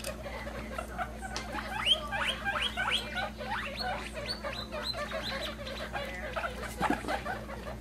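Guinea pigs squeaking: a quick run of short, sharply rising squeaks, about three a second, between about two and five seconds in, with softer squeaks around them.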